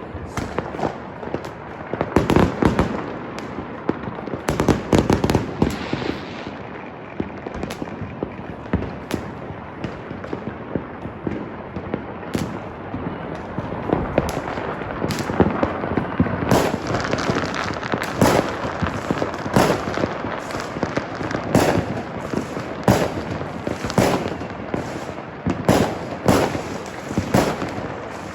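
Fireworks and firecrackers going off all around, many overlapping bangs over constant crackling. From about halfway through, loud bangs come at about one a second.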